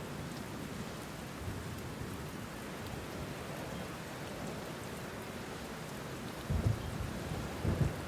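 Steady rain with thunder, two short low rumbles coming near the end.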